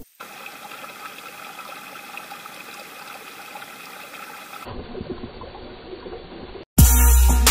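Shallow mountain stream trickling over stones, a steady hiss of running water that turns quieter and duller after about four and a half seconds. Electronic background music with a heavy bass cuts in abruptly near the end.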